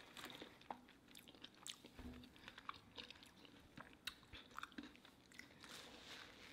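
Faint chewing of a deep-fried taco: scattered small crunches and mouth clicks, with a soft low thud about two seconds in.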